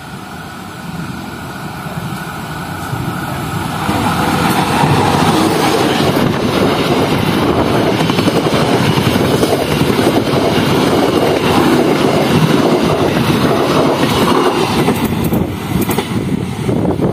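Passenger train passing close by: the rumble and rattle of wheels on the track build up and stay loud from about four seconds in as the carriages go past, with a few sharp clicks near the end.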